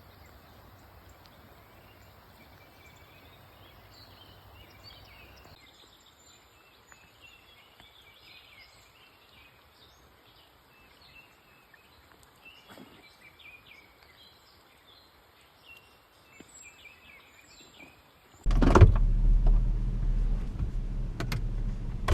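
Faint outdoor ambience with small, scattered bird chirps. Near the end it cuts abruptly to a loud, steady, low hum, like a running car engine heard from inside the vehicle.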